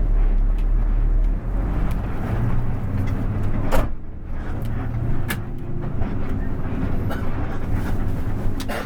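Bus engine running steadily, with a low hum and a few sharp knocks or rattles over it.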